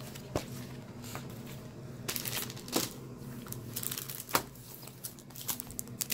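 Paper sketchbooks being handled: pages and covers rustling and crinkling, with scattered light taps as the books are shifted on a table.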